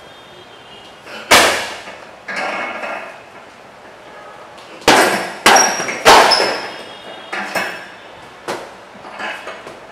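Gloved punches and roundhouse kicks landing on a hanging heavy bag, a jab, left hook and right roundhouse kick combination thrown over and over: about nine smacks of uneven strength, the hardest run of three near the middle. Some hits are followed by a short metallic ring.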